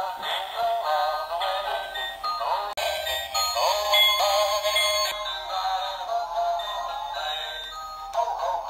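Animated singing Santa toy playing a Christmas song through its small speaker, a thin sound with no bass.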